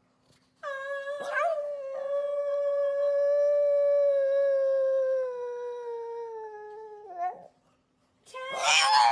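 Pug howling: one long held howl lasting about six seconds, sagging slightly in pitch and dropping off at the end. After a short pause, a second, louder howl starts near the end.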